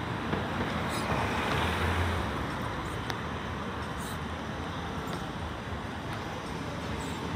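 Steady city street traffic noise, with a car driving across the intersection.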